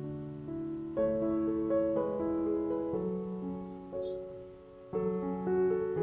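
Background piano music: a slow, gentle tune, with new chords struck about once a second and fading between them.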